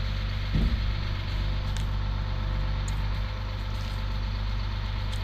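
Rear-load garbage truck's diesel engine idling steadily, with one brief heavy low thump about half a second in.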